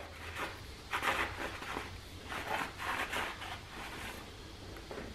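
A shop rag wiping a transmission clutch pack's bottom plate clean: a few short, irregular rubbing and scraping strokes, the strongest about a second in and again around the three-second mark.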